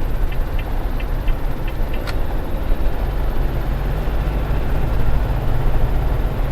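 Steady low drone of a vehicle's engine and road noise heard inside the cab while driving. Light, evenly spaced ticks, about three a second, run over it and stop about two seconds in, followed by a single sharp click.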